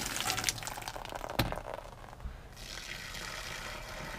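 Pooled rainwater splashing and spilling off the fabric of an RV slide-out awning, with a sharp knock about a second and a half in; after a brief lull the water runs on as a steadier, fainter rush.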